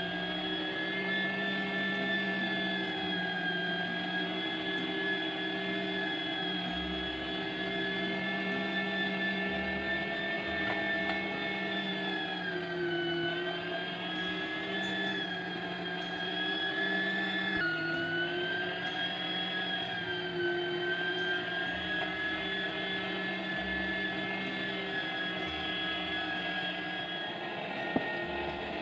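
Electric meat grinder's motor running steadily with a whine as it grinds sweet red peppers and tomatoes; its pitch dips briefly twice past the middle. A single sharp click near the end.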